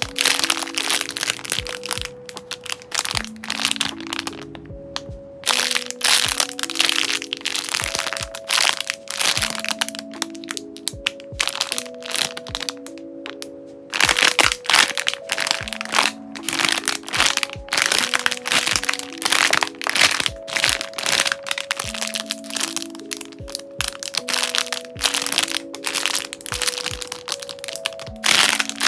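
Clear plastic packaging bags crinkling and crackling in bursts as bagged squishy toys are handled and pressed through them, with a few short pauses. Soft background music with slow held notes plays underneath.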